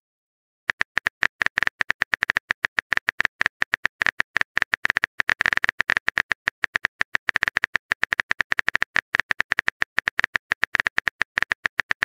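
Phone keyboard key-tap clicks from a texting-story app, a rapid, irregular run of short sharp ticks as a message is typed, starting under a second in.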